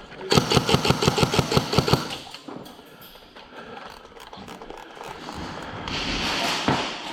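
Airsoft electric rifle firing a burst on full auto, about eight rapid shots a second for under two seconds. A softer hiss follows near the end.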